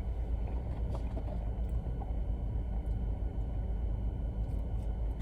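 Steady low rumble of a car, heard from inside the cabin, with a few faint ticks.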